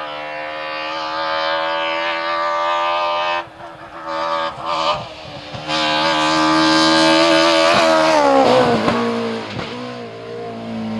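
BMW M3 E30 rally car's four-cylinder engine at high revs on a rally stage: held near full throttle, a sudden lift-off about three and a half seconds in with a few short blips, then back on hard and loud, before the pitch falls sharply about eight seconds in.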